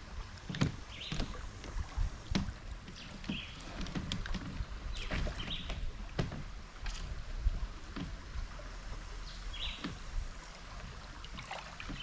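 Bamboo raft moving along a river: water lapping and splashing against the raft with irregular knocks, over a low rumble. A few brief high squeaks come every few seconds.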